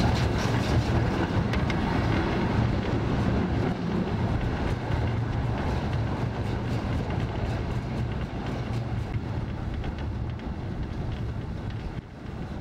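Steam locomotive under way with its train, heard from on board: a steady low rumble of the running train with irregular clicks and rattles over it, dropping somewhat in loudness near the end.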